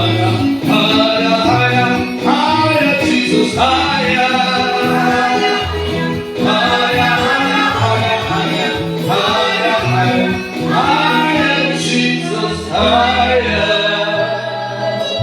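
Gospel worship music: voices singing over a band with a bass line.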